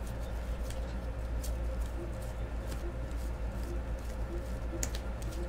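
Stack of baseball trading cards being thumbed through by hand, card slid over card with faint irregular flicks and ticks, over a steady low hum.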